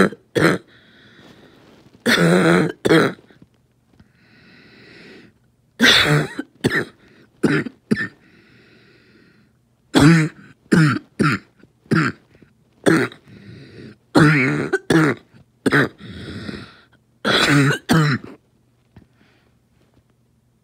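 Asthma coughing fit: harsh, hacking coughs in clusters of two to four, with quieter drawn-in breaths between the clusters. It eases off near the end.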